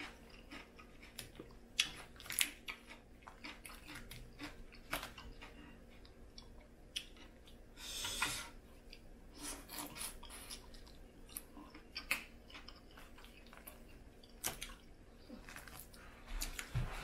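Eating Cajun-style crawfish: shells cracked and peeled by hand in irregular sharp clicks and crackles, with chewing, and a brief hissing rustle about eight seconds in.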